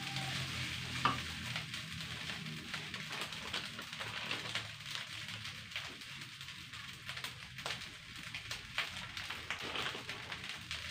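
Fried rice sizzling and crackling in a hot non-stick wok, with a wooden spatula stirring through it near the start, then the rice frying untouched.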